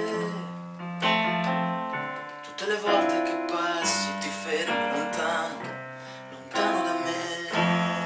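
Electronic keyboard playing sustained piano-like chords in an instrumental passage between sung lines, a new chord struck every second or two and each one fading away.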